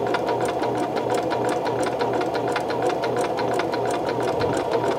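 Electric sewing machine stitching the tight zigzag side of a four-step buttonhole, the needle clattering in a fast, even rhythm over a steady motor hum.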